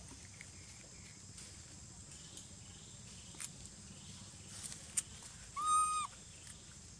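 Long-tailed macaque giving one short, clear coo call, a flat whistle-like tone lasting about half a second, near the end. A couple of faint clicks come before it.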